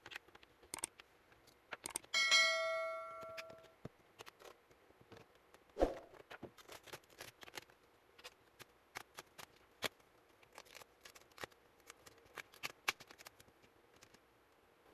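Dell Inspiron laptop's plastic display bezel being pried loose by hand: a run of small clicks and snaps from its clips, with a heavier knock about six seconds in. About two seconds in, a piece of metal gives a brief bell-like ring that dies away over a second or so.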